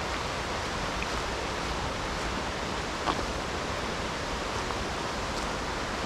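Mountain stream rushing steadily, with a brief faint tick about three seconds in.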